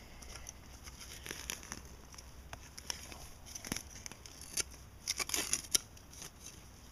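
Loose forest soil being dug and scraped while a buried target is uncovered: a run of scratchy crackles and soft clicks, thickest about five seconds in.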